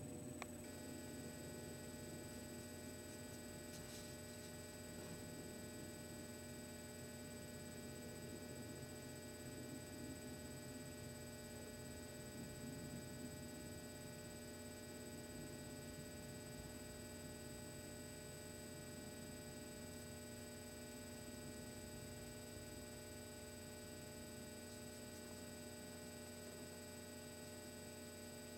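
Steady low electrical hum with several faint, steady high-pitched whine tones over it. A set of the higher tones comes in about half a second in.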